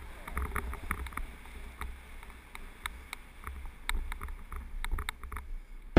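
Wind rumbling on the helmet camera's microphone, with tyre noise and frequent small clicks and rattles from a mountain bike rolling fast down a gravel road.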